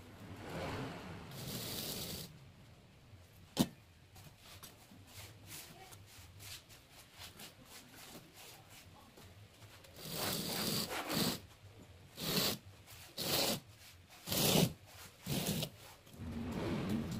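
A wooden profile template scraping along wet sand-cement mortar in a steel mould as a cement fascia board is shaped. A sharp click comes a few seconds in, then a quick run of short rasping scrape strokes fills the second half.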